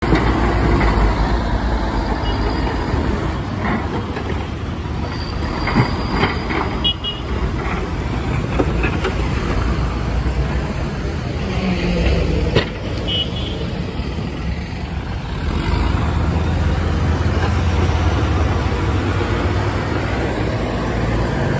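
Backhoe loader's diesel engine running under load as its front bucket pushes soil and rocks, with a few sharp clanks of rock against the steel bucket, the loudest about twelve seconds in.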